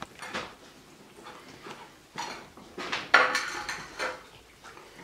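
Porcelain plates clinking and scraping on a glass tabletop as two small dogs eat and lick from them. Irregular light knocks, with a louder clatter about three seconds in.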